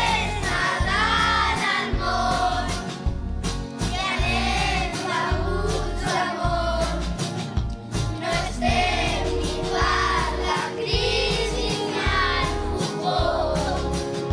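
A class of children singing a Christmas song together over instrumental accompaniment with a steady low beat.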